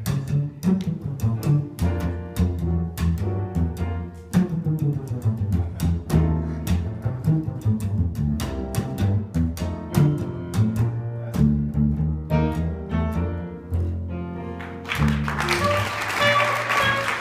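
Double bass solo in a live jazz trio, the bass plucked by hand in a run of low notes with sharp attacks. About fifteen seconds in, a clarinet comes back in with held high notes over the bass.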